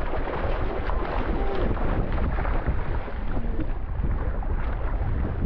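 Many mullet splashing and thrashing at the water's surface as a cast net closes around them, a rapid jumble of small splashes, with wind rumbling on the microphone.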